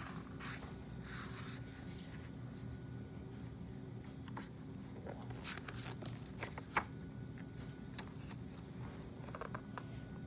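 Faint rustling and scraping, as of a picture book's paper pages being handled, over a low steady hum, with one small sharp click about seven seconds in.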